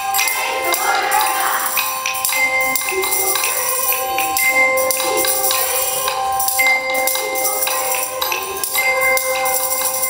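Small hand-held bells rung by children, one note after another, each held and ringing over the next, over a high jingling shimmer.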